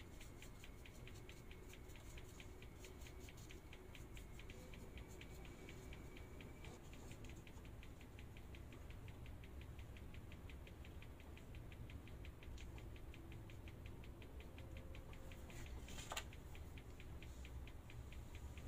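Faint, even ticking, about four or five ticks a second, over a low hum, with one louder click near the end.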